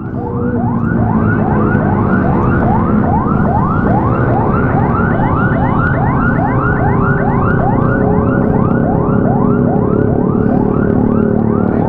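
Police siren sounding a fast yelp: a rising wail that repeats about three times a second without a break, over a steady low drone.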